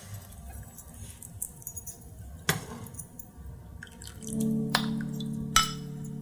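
A metal ladle knocking and scraping against a nonstick pan and a ceramic bowl as thick chili is ladled out, with a few scattered clinks, the sharpest about five and a half seconds in. Soft background music with held tones comes in a little after four seconds.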